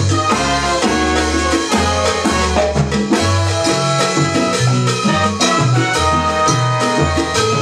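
Salsa band playing: trumpets held over piano, percussion and a moving bass line, at a steady rhythm.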